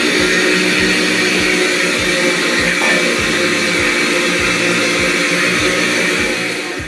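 Electric kitchen blender running steadily at full speed, mixing cake batter of eggs, sugar, oil and coconut milk. It cuts off suddenly at the very end.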